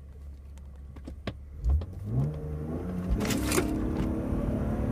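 BMW E36 328is's 2.8-litre straight-six idles, then is launched hard from a standstill about a second and a half in, the revs climbing quickly. A short rushing noise comes about three seconds in, and then the engine pulls on with rising pitch.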